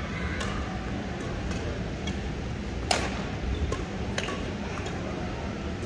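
Badminton rackets striking a shuttlecock in a doubles rally: several sharp clicks, the loudest about three seconds in, over a steady low hum.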